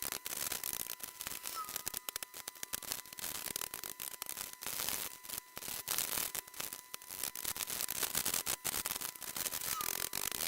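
DaYan speed cube being turned rapidly by hand, its plastic layers clicking in quick, irregular succession. The cube is freshly lubed with silicone and its spring tension loosened, so it turns loosely.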